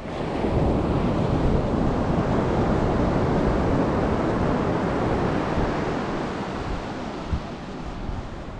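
Atlantic surf: a wave breaks about half a second in and its wash slowly fades over the following seconds. Wind rumbles on the microphone.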